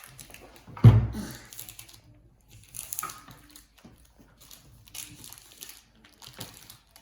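Crinkling and tearing of a plastic blind-bag wrapper being opened, in short bursts, with a loud bump about a second in.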